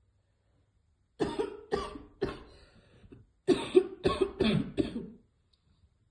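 A woman coughing hard in two fits: three coughs starting about a second in, then four more in quick succession just past halfway. It is choking coughing set off by a hit from a vape.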